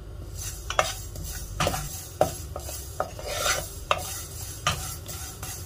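Wooden spatula stirring vermicelli as it roasts in a coated pan, a steady scraping rustle of the strands against the pan, broken by irregular knocks of the spatula on the pan.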